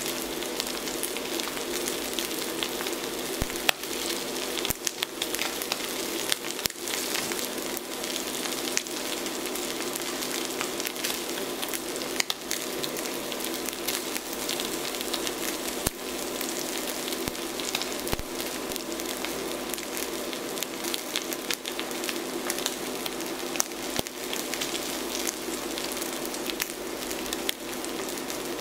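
Dry-aged ribeye steak searing in a hot cast-iron skillet: a steady sizzle with frequent small pops and spits of fat.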